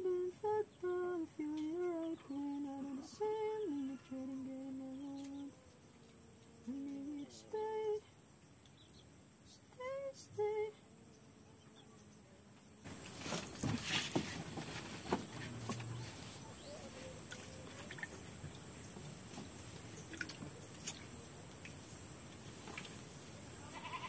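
A person humming a tune softly, holding a few steady notes, then a couple of short rising hums. About halfway through, a faint steady hiss begins, with scattered light clicks.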